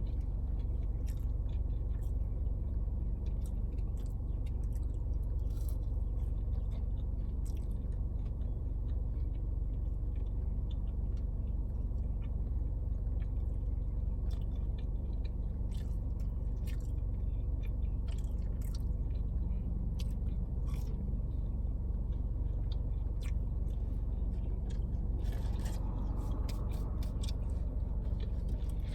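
A person chewing and eating, with many small wet mouth clicks, over a steady low rumble. Near the end a louder rushing sound rises for a couple of seconds.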